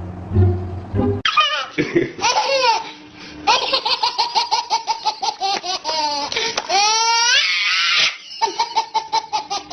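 High-pitched laughter in quick repeated pulses with swooping rises and falls in pitch, starting abruptly about a second in, after a short stretch of music.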